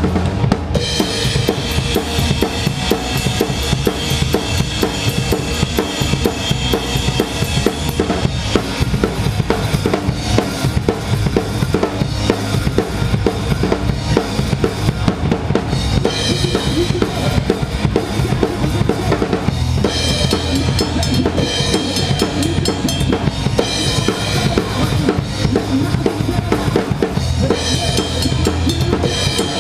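Rock band playing a song live, with the drum kit loud and close: a steady driving beat of kick and snare.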